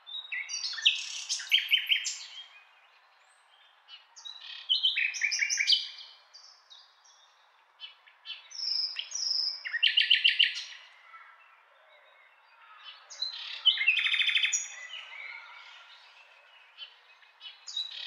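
Common nightingale singing: loud phrases of fast repeated notes and rapid trills, each about two seconds long, separated by pauses of a second or two, with a fresh phrase starting at the very end.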